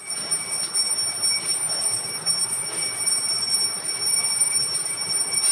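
A steady high-pitched whine made of several constant tones, over an even background hiss.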